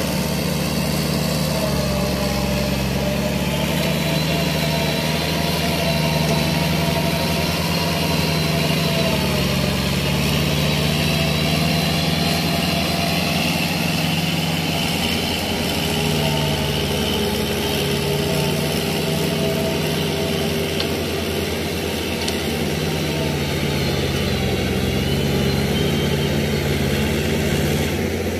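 Kubota L5018 tractor's diesel engine running steadily under load while pulling a rotary tiller through paddy soil. Its pitch rises and falls slightly.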